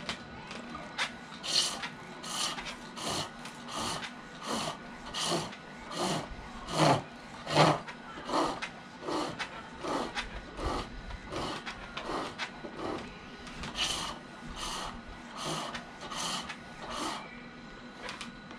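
Green silver birch being turned on a foot-powered pole lathe: a turning tool cuts the spinning blank on each treadle down-stroke, giving a steady rhythm of scraping cuts about one and a half times a second. The cuts stop shortly before the end.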